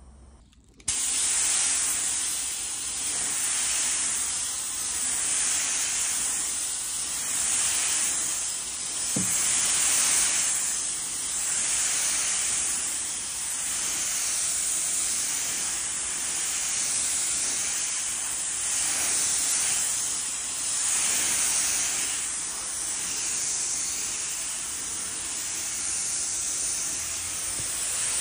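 Gravity-feed compressed-air paint spray gun hissing as it sprays grey paint onto rows of hanging homemade pirks. The hiss starts suddenly about a second in and swells and eases every couple of seconds as the gun passes along the lures.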